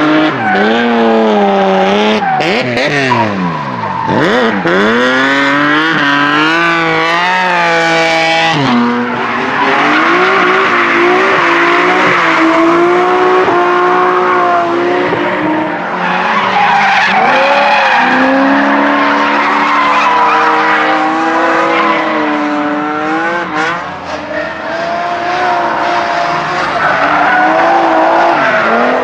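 Drift cars sliding one after another, their engines revving hard with the pitch rising and falling as the throttle is worked, over screeching tyres. The sound changes abruptly a few times as one car gives way to the next.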